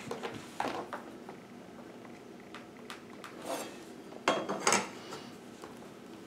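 Hand tools being handled and set down on a hardwood stair: a few light clinks and knocks, with the loudest cluster about four to five seconds in.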